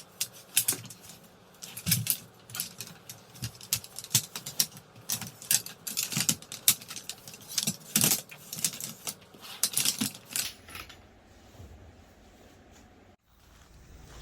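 Irregular light clicks and clinks of small hard objects being handled, stopping about ten seconds in and leaving only low background noise.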